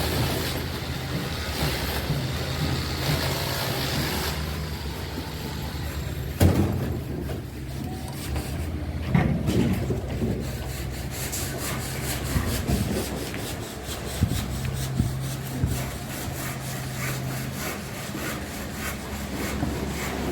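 Excavator's diesel engine running under load, with scraping and sharp knocks from the bucket working chalky soil; the loudest knocks come about six and nine seconds in.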